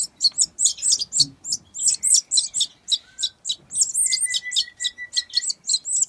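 Parrot crossbill chicks begging to be fed: a rapid, continuous series of short, high chirps, several a second. From the middle on, the chirps become arching call notes.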